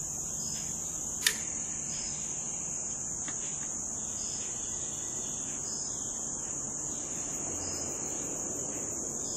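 Steady high-pitched chorus of crickets, with one sharp click about a second in.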